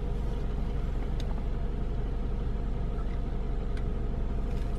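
Steady low rumble of a running motor, with a couple of faint clicks.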